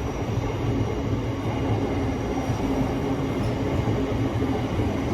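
Class 707 electric multiple unit running past, a steady rumble of wheels on rail with a low, even hum underneath.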